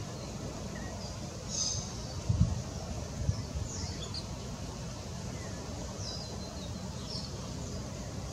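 Small birds giving scattered short, high chirps, some falling in pitch, over a steady outdoor hiss. Two brief low thumps about two and three seconds in are the loudest sounds.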